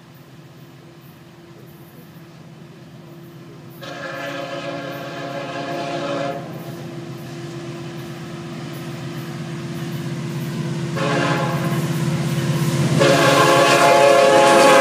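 Florida East Coast Railway diesel freight locomotives approaching and growing steadily louder, with the lead unit's air horn sounded for the grade crossing: a long blast about four seconds in, a shorter one about eleven seconds in, and another long blast from about thirteen seconds that carries on past the end.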